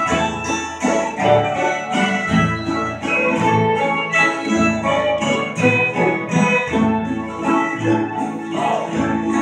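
Acoustic bluegrass jam: several acoustic guitars strumming together over an upright bass keeping a steady beat, with fiddle and banjo in the mix.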